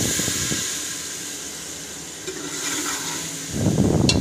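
Water splashed into hot oil with fried onions, ginger, garlic and green chillies, hissing and sizzling in a pot and throwing up steam. The hiss fades over the first two seconds, and a short louder burst of bubbling and stirring comes near the end.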